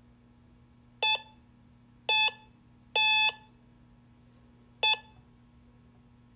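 Morse code beeps: four electronic tones about a second apart, the first and last short and the middle two held longer, over a steady low hum.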